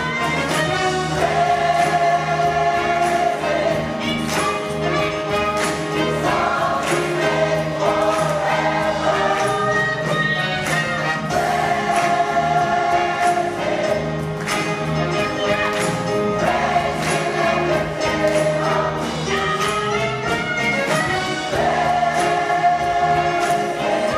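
Large mixed gospel choir singing in phrases, backed by a live band of electric guitar, bass guitar, keyboards and drums keeping a steady beat.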